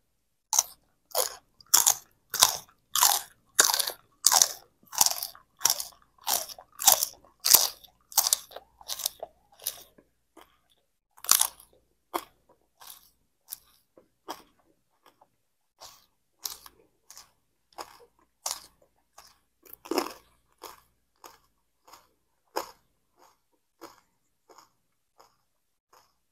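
Steady crunching strokes, about two a second, loud for the first ten seconds and then fainter, with a few louder ones among them: fresh herb leaves being broken up.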